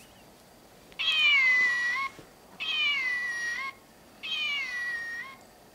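Button-activated stuffed toy cat playing its recorded meow three times in a row through its small speaker. The three meows are identical, each about a second long, thin and high, falling in pitch with a slight upturn at the end.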